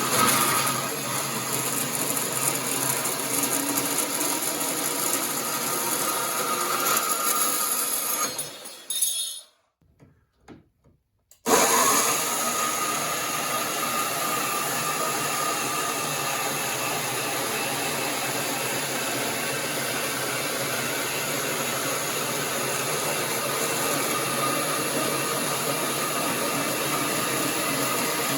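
Bauer variable-speed portable band saw (Portaband) cutting through 16-gauge mild steel plate, a steady grinding whir. About ten seconds in it falls silent for roughly two seconds, then starts cutting again at full level.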